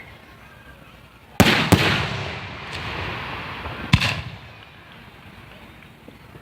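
Aerial fireworks bursting: two booms in quick succession about a second and a half in, trailing off slowly, then another single boom about four seconds in.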